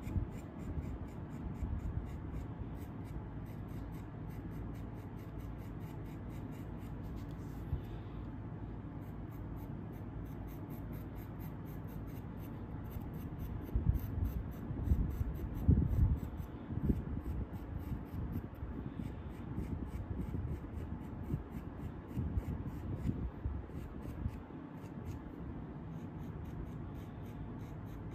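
Metal carving tool scratching and scraping into a firm, partly dried clay vase that crumbles to dust as it is cut, in short strokes. A louder, choppier stretch of scraping comes about halfway through.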